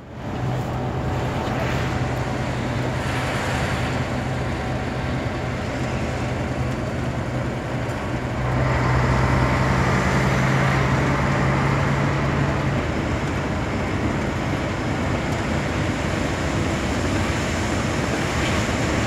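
Concrete mixer truck driving, heard from inside the cab: a steady diesel engine drone under road and wind noise, which grows louder about eight seconds in.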